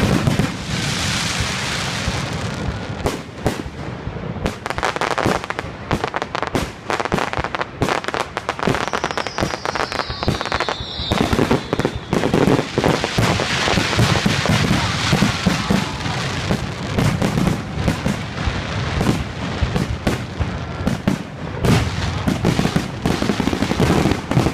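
Fireworks display: rapid bangs and crackling shells going off in close succession, with a whistle falling in pitch about nine seconds in.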